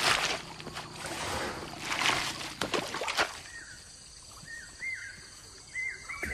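Water splashing and sloshing in a few bursts over the first three seconds. Then a bird calls again and again in short chirps that rise and fall, over a steady high drone of insects.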